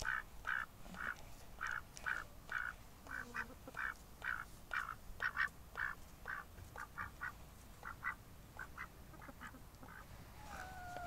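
Domestic duck quacking over and over, about two quacks a second, coming quicker and in clusters later, with a longer wavering call near the end.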